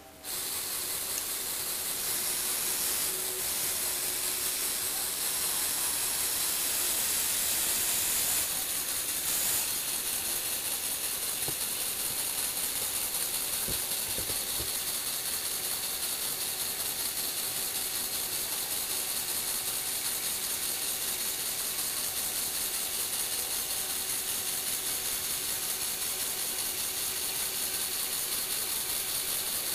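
Lego Technic electric motors driving plastic gears, running steadily with a fast, fine ratcheting whir as the model platform tilts and moves.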